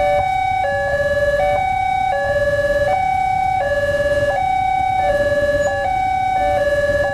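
Two railway level-crossing warning sirens sounding at once, each stepping back and forth between a low and a high tone, out of step with each other so that they clash. A low rumble runs underneath.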